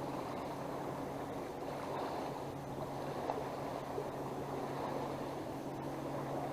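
Choppy water lapping against a small fishing boat's hull, with wind, over a steady low hum.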